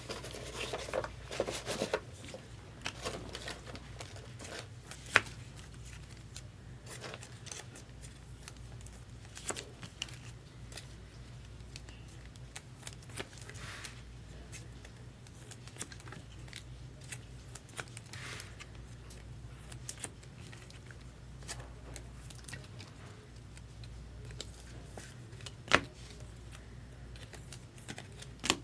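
Trading cards and their packaging being handled and opened: faint rustling and tearing with scattered small clicks, two sharper clicks about five seconds in and near the end, over a low steady hum.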